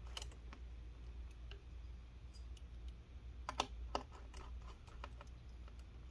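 Faint clicks and taps of a small pentalobe screwdriver and tiny screws on a MacBook Air's aluminium bottom case as the last screws are set and driven in, with a few sharper clicks about three and a half seconds in.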